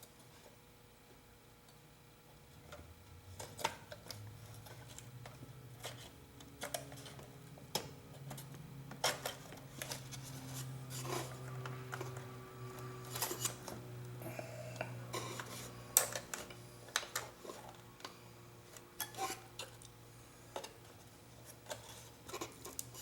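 Irregular clicks, taps and light clatter of hands and small tools working on a cuckoo clock's case and movement, with a low hum underneath for much of it.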